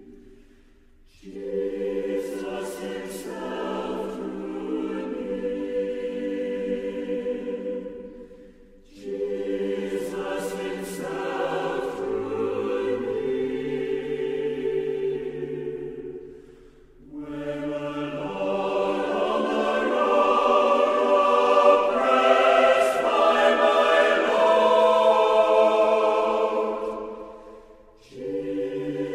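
A choir singing slow, sustained chords in three long phrases, with brief pauses between them; the third phrase is the loudest.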